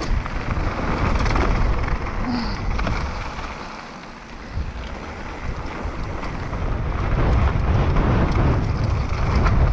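Wind rushing over the action camera's microphone during a fast downhill mountain-bike descent, with the low rumble of the bike running over the rough trail. It eases off for a couple of seconds midway, then builds again.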